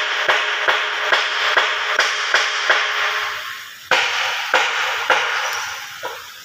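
Quick metal-on-metal taps with a ringing tone, about three a second, made while working parts onto a hydraulic pump housing. The taps die away about three and a half seconds in, then start again more slowly.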